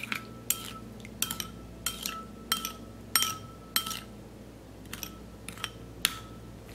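Metal spoon stirring a thin fish-sauce and chili dressing in a small ceramic bowl, clinking against the bowl's side: a dozen or so light taps at irregular intervals, each with a short ring.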